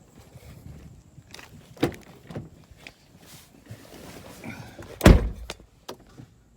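A car door being handled: a sharp click about two seconds in, then the door shutting with a heavy thunk about five seconds in. No engine cranking is heard.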